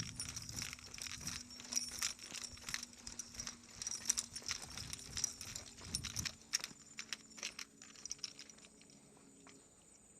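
Quick, closely spaced footfalls with light metallic jingling, thinning out and fading about eight seconds in.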